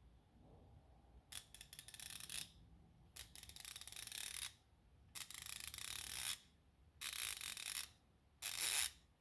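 Capri Tools 90-tooth fine-gear ratchet being swung back and forth, its pawl giving off a rapid, fine, high-pitched clicking in five separate strokes with short pauses between.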